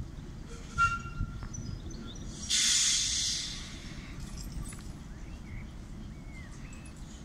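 Class 08 diesel shunter letting off a sudden hiss of air about two and a half seconds in, fading away over about a second. Two short knocks come just before it, and birds chirp faintly.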